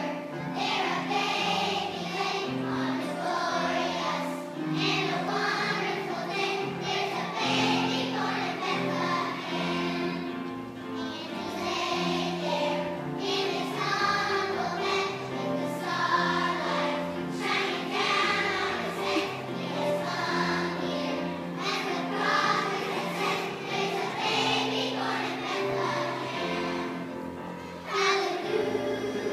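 A large choir of young children singing together, with held low notes of musical accompaniment beneath the voices.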